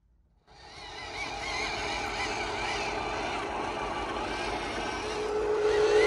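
Radio-controlled toy truck's electric motors and gearbox whining as it drives, starting suddenly about half a second in with a wavering pitch and growing louder, with a stronger steady tone coming in near the end.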